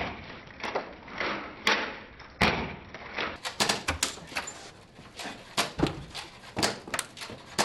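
A rapid, irregular string of sharp pops and thuds, a dozen or so: foam Nerf darts being fired and smacking into a person and a wooden classroom door, with the door handle rattling and the door knocking in its frame.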